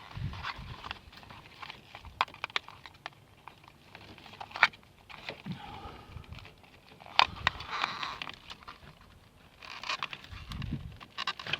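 Hands working a plastic wiring-loom clip loose: scattered sharp clicks and knocks with rustling handling noise, and a couple of louder snaps about halfway through.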